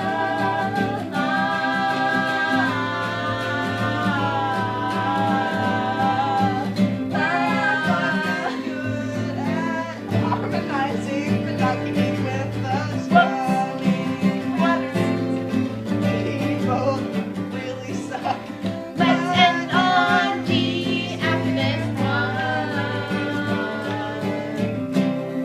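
Guitar played with country-style singing, the voice holding long wavering notes over the guitar's steady low notes.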